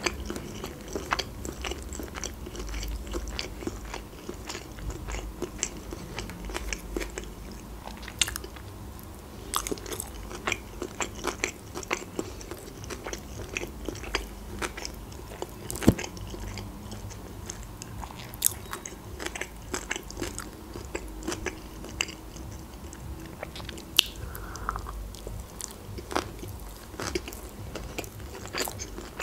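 Close-miked chewing of sushi rolls: soft crunches and many irregular wet mouth clicks and smacks, with one sharper click about 16 seconds in.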